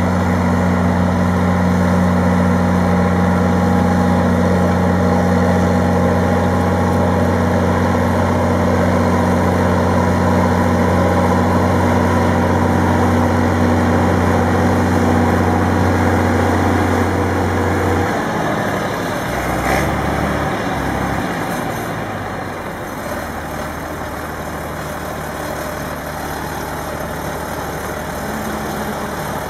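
Heavy diesel engine running steadily, its note dropping about eighteen seconds in to a lower, quieter run, with a brief sharp sound a couple of seconds later.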